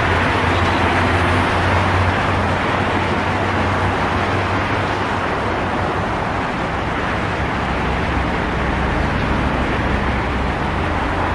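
Busy highway traffic: a continuous, steady wash of tyre and engine noise from many vehicles passing, with a low engine drone underneath.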